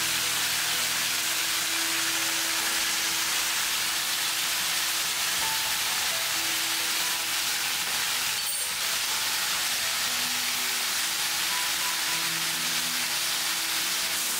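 Steady cooking hiss of food sizzling or steaming over heat, under soft background music with a few quiet melodic notes.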